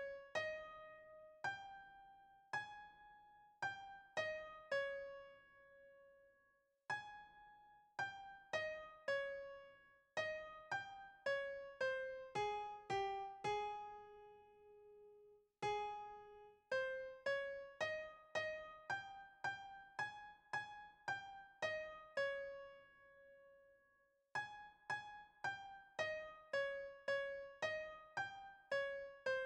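Background music: a slow melody of single piano notes, each struck and left to fade, in phrases with short pauses between them.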